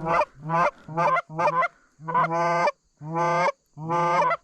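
Goose honking: a rapid run of about seven close, loud two-note honks, each breaking from a low note up to a higher one, the later ones longer.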